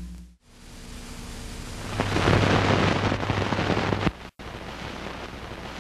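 A rushing, rumbling noise with a low hum under it swells up, breaks off suddenly about four seconds in, then carries on more quietly.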